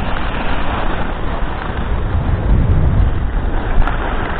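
Wind rushing over the microphone of a skier moving at speed, with the hiss and scrape of skis sliding over packed, tracked snow; a sharp click near the end.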